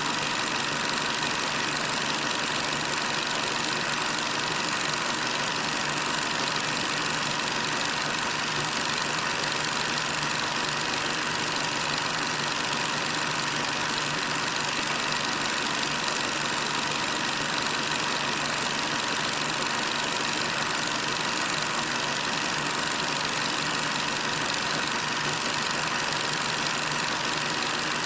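Steady, unchanging hiss with a faint hum, the background noise of an old film soundtrack.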